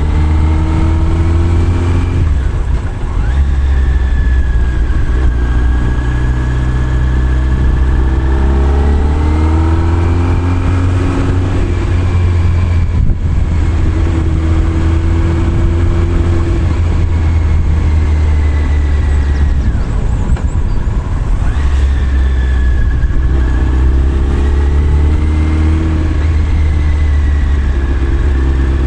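Motorcycle engine running from on board the bike, its note rising and falling with the throttle through the bends. There are brief breaks in the note about two seconds in and again around twenty seconds in.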